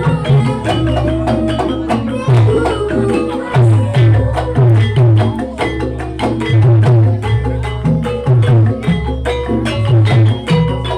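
Banyumasan ebeg dance music: rapid struck tuned percussion with a deep drum pattern pulsing underneath.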